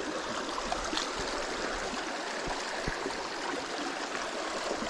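Shallow stream flowing over rocks: a steady rush of water, with a few faint ticks.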